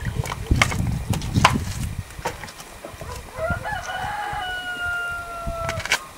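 A rooster crowing once, starting about halfway in: a few broken notes, then a long held final note that falls slightly in pitch and cuts off sharply near the end. Scattered clicks and low rumbling come in the first couple of seconds.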